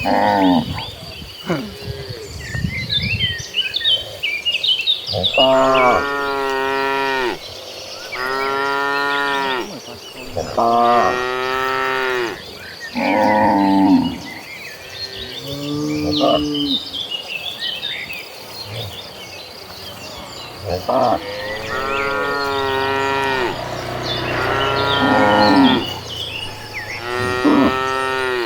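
A herd of cattle mooing: about nine long calls from several cows, one after another, each one to two seconds long, the first about five seconds in.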